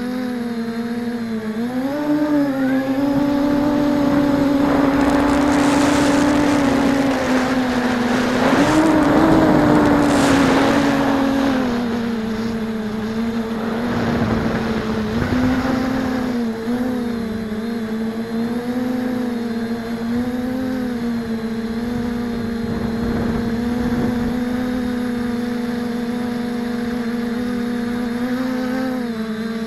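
Quadcopter's brushless motors and propellers heard from its onboard camera: a steady whine whose pitch rises and falls with the throttle. A broad rushing noise swells in a couple of seconds in and fades out by about twelve seconds.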